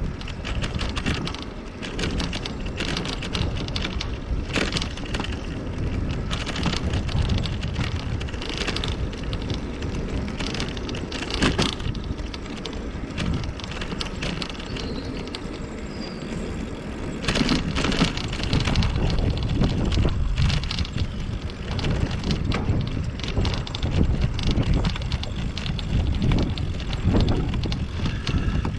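A bicycle ridden along city streets, heard from close to the bike: wind buffeting the microphone over a low tyre-and-road rumble, with frequent small clicks and rattles from the bike over the road surface. It gets louder a little past halfway.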